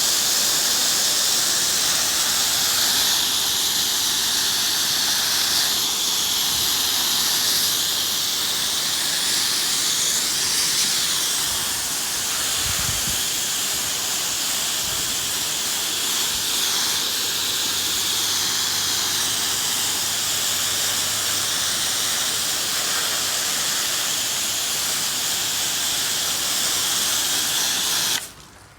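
Steady hiss of a pressure-washer spray nozzle spraying soap solution onto the house, cutting off suddenly near the end.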